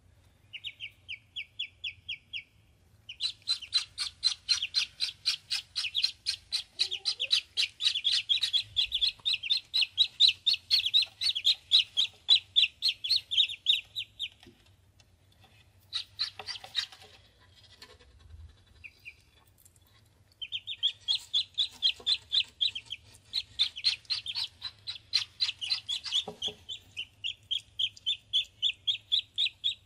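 Ducklings peeping: long runs of rapid high chirps, several a second, with a pause of a few seconds midway.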